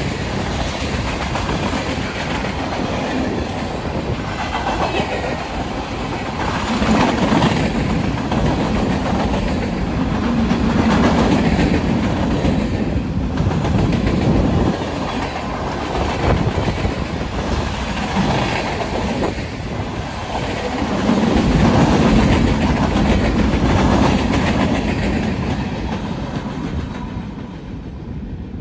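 Freight train cars rolling past close by: steel wheels rumbling and clacking on the rails, swelling and easing as the cars go by. It fades near the end as the last car passes.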